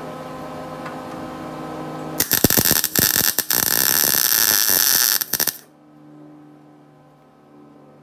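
MIG welder arc striking on sheet steel: after about two seconds of steady hiss and hum, the arc catches with a sputter, crackles steadily for about three seconds as a tack weld is laid, then cuts off, leaving a low hum.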